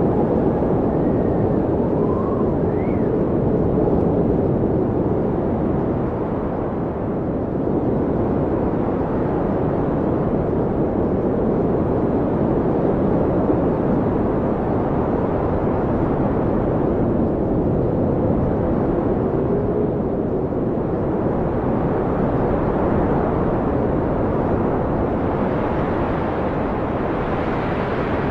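Blizzard wind blowing hard and steadily, a dense rushing noise with faint howling whistles that rise and fall in pitch near the start and again about twenty seconds in. The wind turns hissier near the end.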